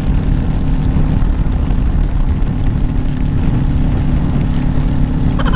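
Kawasaki Ninja 400's parallel-twin engine running at a steady cruise, mixed with heavy wind rush on the microphone.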